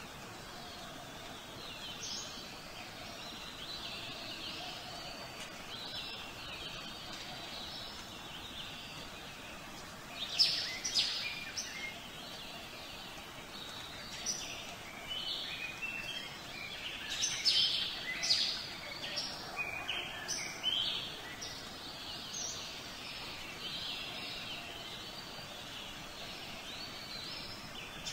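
Birdsong: several small birds chirping and twittering, softer for the first ten seconds, then louder runs of quick chirps from about ten seconds in.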